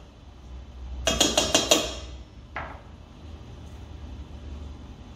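A knife blade tapping and scraping against a stainless steel mixing bowl: a quick run of about six metallic taps about a second in, then a single ringing clink. It is knocking lemon zest off the blade into the bowl.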